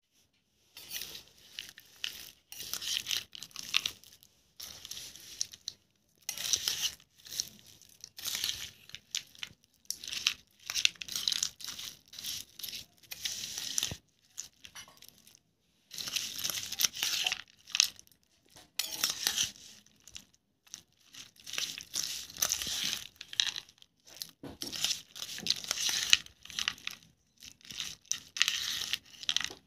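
Metal spoon stirring and scraping a chana (chickpea) salad in a stainless steel bowl, the chickpeas and chopped vegetables shifting against the steel. It comes in bursts of a second or two with short pauses, and one longer pause about halfway.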